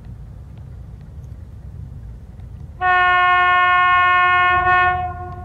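Horn of the ST43 diesel locomotive ST43-364 sounding one long blast of about two seconds, starting about halfway through. It stands out loudly over a low steady rumble.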